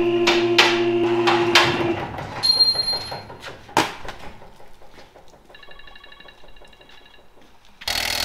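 A steady motor hum with regular metallic knocks for the first two seconds, then quieter clinks of work on the axle, and a cordless impact wrench starting up near the end, tightening the axle's mounting bolts.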